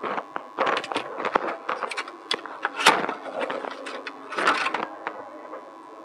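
Handling noise: irregular clicks, taps and plastic crinkles as a USB Wi-Fi adapter, its antenna and a driver CD in a clear plastic tray are handled on a tabletop. The sharpest click comes about three seconds in, with a longer rustle just after four seconds.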